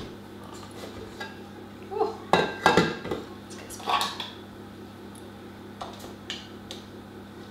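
Metal utensils clinking and knocking against a KitchenAid stand mixer's stainless steel bowl as the tilted-up paddle and a metal spoon are handled. A handful of separate knocks, the loudest cluster about two and a half seconds in.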